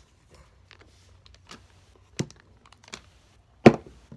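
Handling of paper and a glue stick on a tabletop: scattered light clicks and rustles, with two sharper knocks, one about two seconds in and a louder one near the end.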